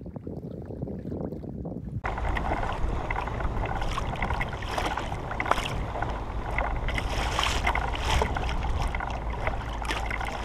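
Small ocean waves lapping and slapping against a Hobie kayak's hull, with wind rushing over the camera microphone. It gets louder about two seconds in.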